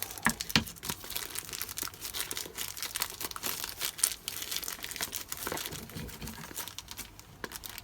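Plastic packaging crinkling and tearing as it is pulled off a new pond float switch by hand, in dense, irregular crackles.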